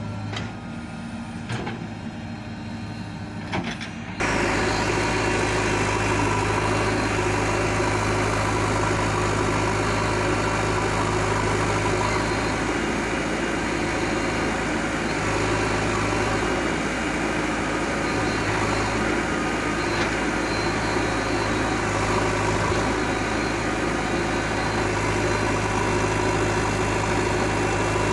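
Diesel engine of a JCB 3DX backhoe loader running steadily at work. It is quieter for about the first four seconds, then abruptly much louder and even for the rest.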